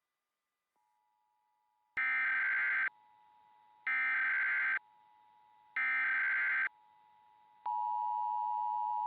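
Emergency Alert System SAME header: three identical shrill, buzzy data bursts about a second long, spaced about a second apart. It encodes a nationwide live code test of the alert system. Near the end the steady two-tone EAS attention signal begins.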